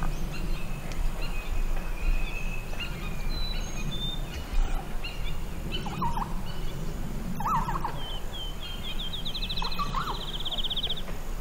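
A few short, raspy turkey calls in the second half, over steady songbird chirping, with a fast even songbird trill near the end.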